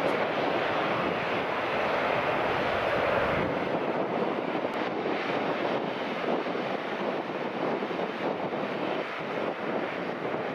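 Four-engine Airbus A380 jet engines running at taxi power: a steady, even jet noise with no change in pitch.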